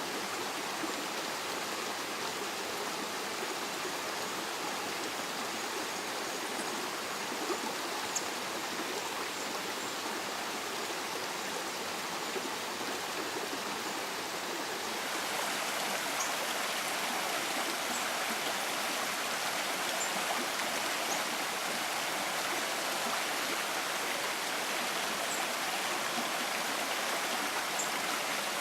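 Rushing stream water, a steady flow that grows a little louder and brighter about halfway through, with a few faint, short high ticks over it.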